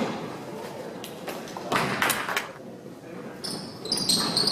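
A basketball thumping on the rim and bouncing on the gym floor during free throws, then sneakers squeaking on the court near the end as players move for the rebound.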